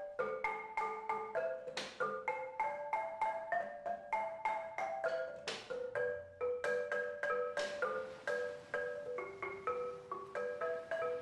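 Background music: a melody of quick struck mallet-percussion notes, each ringing briefly, about three or four a second.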